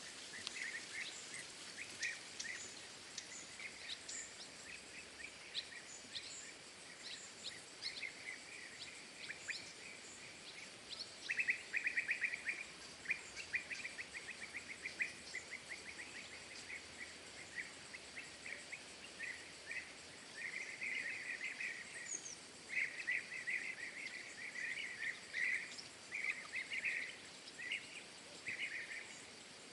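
Small birds chirping and twittering over a steady background hiss: repeated short calls and quick trills, busiest from about the middle on, with fainter high-pitched chirps over them.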